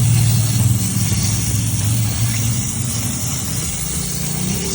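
Pressure washer running with a steady motor hum and the hiss of its water spray, rinsing degreaser and rust off a bicycle chain.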